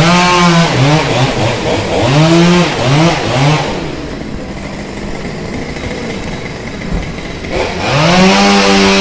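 A street vehicle's engine revving, rising and falling in pitch in about four quick swells, then quieter traffic noise, then the engine pitch rising again and holding steady near the end.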